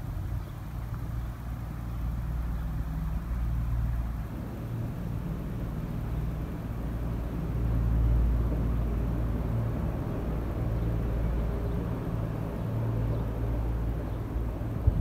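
A steady low rumble with a constant hum, like a motor running.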